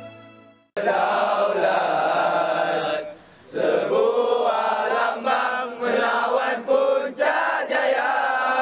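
A large group of teenage boys singing loudly in unison, with a short break for breath about three seconds in. It opens on the tail of fading music and a moment of silence.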